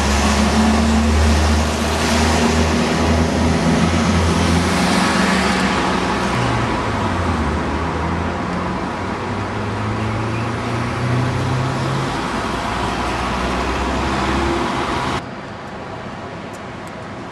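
A large vehicle's engine running close by over traffic noise, its pitch dipping and then rising again about midway. The sound cuts off abruptly near the end to quieter traffic noise.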